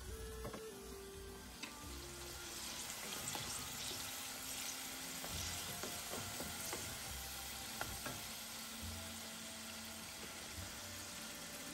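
Green plantain chunks deep-frying in hot oil in a saucepan: a steady sizzling hiss that grows louder about two seconds in, with scattered light knocks of a wooden spoon turning the pieces against the pot.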